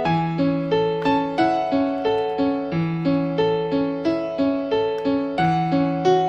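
Background music: a gentle piano tune, notes struck evenly about three times a second over held bass notes.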